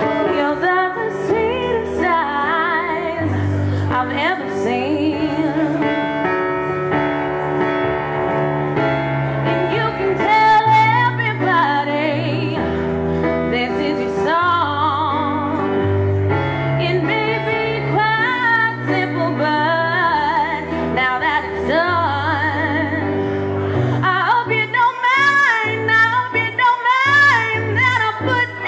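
A woman singing with vibrato over instrumental accompaniment of sustained chords and a bass line that moves every second or two.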